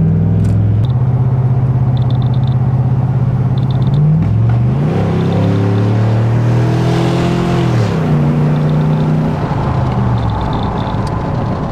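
Subaru WRX STI's turbocharged 2.5-litre flat-four engine pulling through the gears: its pitch climbs, drops sharply at each shift and holds steady between shifts, with a few short bursts of faint ticking.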